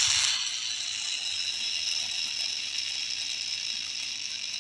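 New skateboard wheel spinning freely on its bearings: a steady, high whir that slowly fades as the wheel loses speed.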